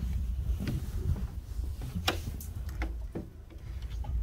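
Footsteps and small knocks of a phone being carried while walking, over a steady low rumble of wind on the microphone; the sharpest knock comes about two seconds in.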